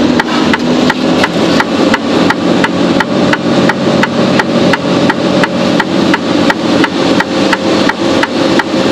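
Indicator ticker in a Mercedes-Benz Actros truck cab clicking evenly, about three ticks a second, over the steady low running of the truck's engine.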